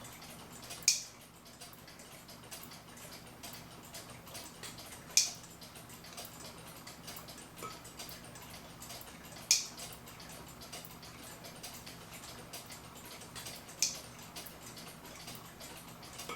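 A clock ticking faintly and quickly, with a sharp click about every four seconds.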